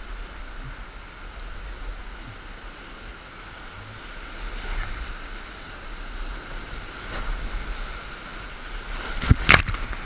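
Steady rushing of whitewater rapids around an inflatable raft, with two sharp knocks close together near the end.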